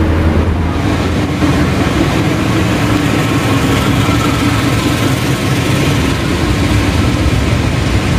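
CC206 diesel-electric locomotive passing close by with its engine running, then freight wagons rolling past. The sound is a steady, loud rumble with a low hum.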